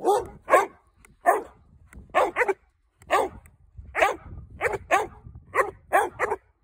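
Dog barking in play: about fourteen short barks in an uneven series, some in quick pairs.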